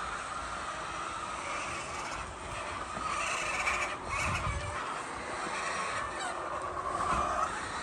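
A flock of chickens clucking and calling together in a continuous chorus over a steady background rumble.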